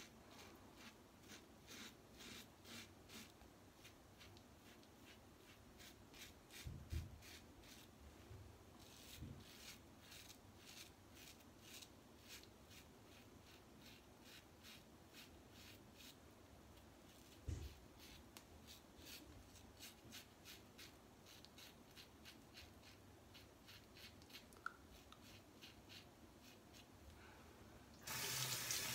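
Gillette Fatboy double-edge safety razor with a Treet Platinum blade scraping through lathered stubble in short, repeated strokes, faint, with a couple of soft knocks along the way. Near the end a tap turns on and water runs into the sink, much louder than the shaving.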